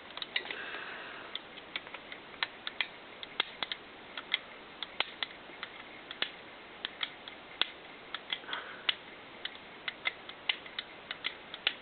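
Sharp, irregular clicking of the Colt M4 .22LR rifle's trigger group and lower receiver parts being worked by hand, its sear freshly oiled.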